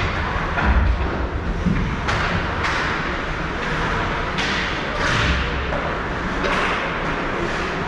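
Ice hockey rink sound during play: a string of short scraping swishes, typical of skate blades on ice, and a few dull thumps, over a steady rink din.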